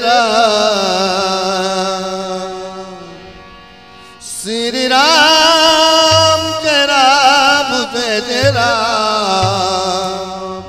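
A woman singing a Shri Ram devotional kirtan in long, wavering, ornamented notes over a steady drone. One phrase fades out about four seconds in and a new one begins, with a few low drum strokes beneath it.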